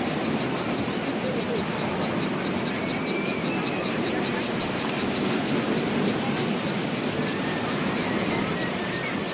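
Insects chirring in a rapid, even, high-pitched pulse, over a steady low wash of beach ambience.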